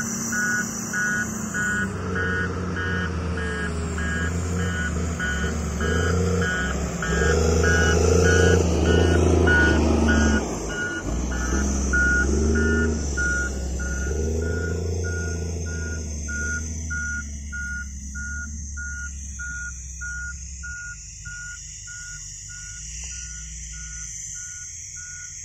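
Several SUVs and a pickup driving off across loose dirt, their engines revving up and down and then fading into the distance in the second half. Over it an electronic warning beep repeats steadily at about two beeps a second.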